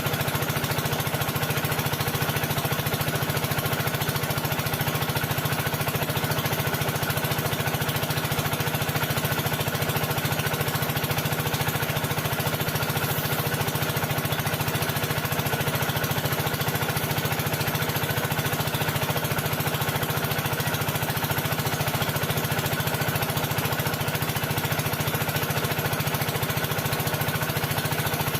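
A machine with a motor or engine running steadily at a constant speed, with a fast, even pulsing beat and a low hum.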